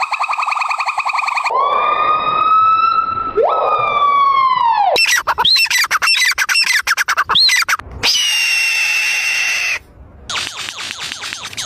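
A string of different animal and bird calls spliced one after another, each cut off abruptly: a fast pulsing trill, two long wailing calls that rise and then fall, quick chirps and looping whistles, a held whistle, and near the end a fast buzzy trill.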